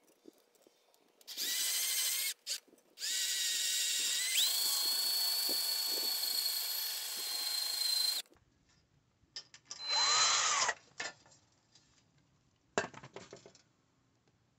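Cordless drill with a small bit drilling a pilot hole through a metal mirror-clip rail: a short start and stop, then about five seconds of steady drilling whose whine steps up in pitch partway through. About ten seconds in, a brief burst whose tone rises and falls, and a short burst near the end.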